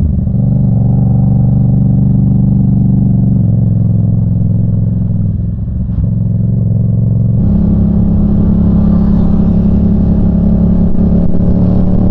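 Yamaha FZ-07's parallel-twin engine running loud under way, heard from on the bike. It holds a steady note, eases briefly, then picks up with a brighter, rising sound about seven seconds in.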